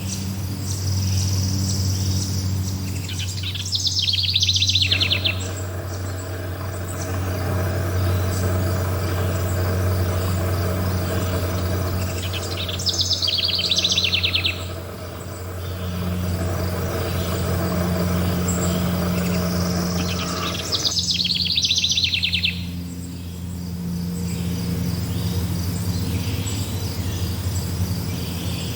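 Forest birds and insects calling. A rapid high trill comes three times, about every eight or nine seconds, over fainter chirping and a steady low hum.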